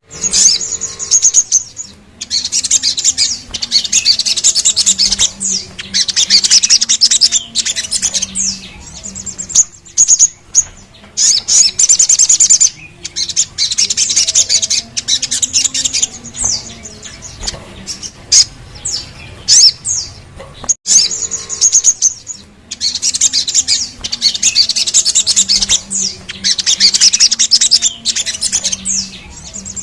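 Sogok ontong (sogon), a spiderhunter, singing long rapid high-pitched rolling phrases of a few seconds each, with short breaks between them. This kind of recording is played to caged sogon to stimulate them to sing.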